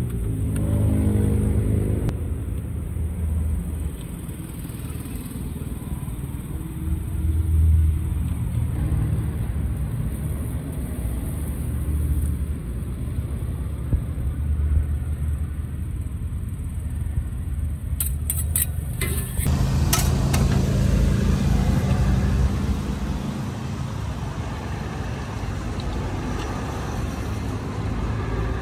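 Road traffic passing a roadside stall: low engine and tyre rumble that swells and fades as vehicles go by.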